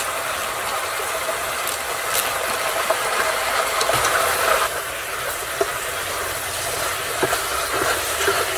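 Beef sizzling in hot oil in a frying pan while being stir-fried: a steady hiss with a few sharp clicks of a utensil against the pan.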